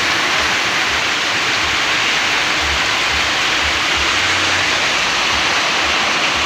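Floodwater flowing, a loud steady rushing sound, with brief low bumps every second or so.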